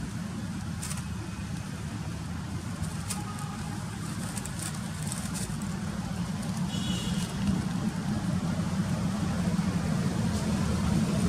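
Steady low motor rumble, like a vehicle running nearby, slowly growing a little louder, with a few short clicks and a brief high chirp about seven seconds in.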